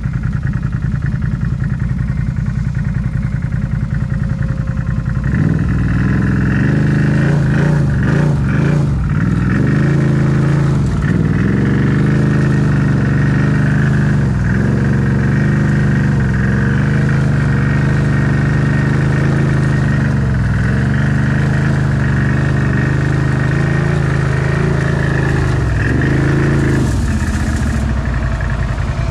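Off-road vehicle engine idling with a fast, even pulse, then throttled up about five seconds in and run hard, its pitch rising and falling with the throttle, before easing back to idle near the end.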